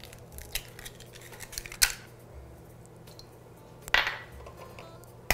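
Eggs being cracked one at a time on the rim of a mixing bowl: a few sharp taps and knocks, the loudest about two seconds in and about four seconds in.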